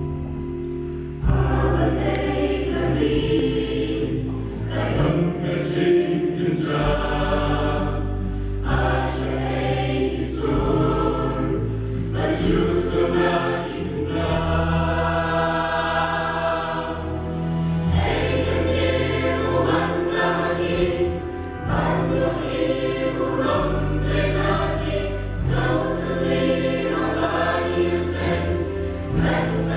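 Background music: a choir singing over a bass line, coming in about a second in.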